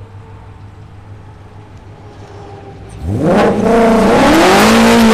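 Shelby GT350's flat-plane-crank 5.2 L V8 through freshly installed American Racing long-tube headers and full exhaust. After a low steady drone, the engine opens up about three seconds in and climbs sharply in pitch under hard acceleration, staying loud to the end.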